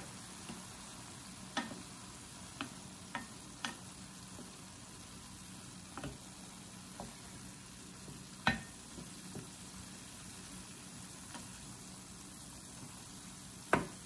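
A wooden spoon stirs ground beef, onion and tomato in a stainless steel pan over a low steady sizzle. The spoon knocks against the pan about eight times at irregular intervals, loudest just past halfway and again near the end.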